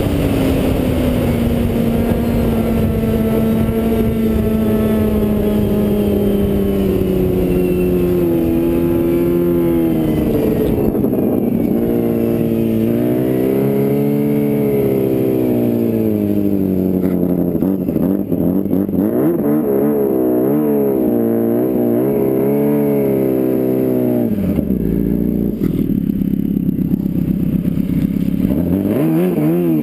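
Snowmobile engine under way, holding a steady pitch at first and easing off about a third of the way in. After that the revs rise and fall again and again, drop away briefly near the end and climb once more.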